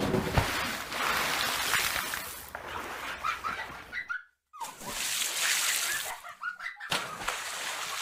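Water splashing and bubbling with a rushing sound, which breaks off briefly about four seconds in and again near seven seconds.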